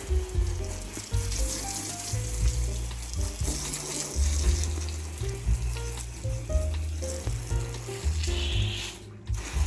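Steady hiss of water spraying, under jazz background music with a walking bass line.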